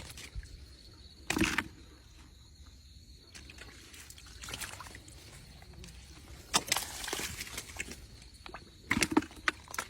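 Water sloshing and splashing in a few short, separate bursts over a quiet background.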